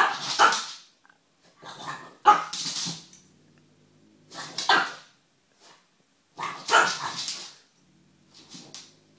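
French bulldog barking up at a cat in short bouts of a few barks, with gaps of about a second between bouts.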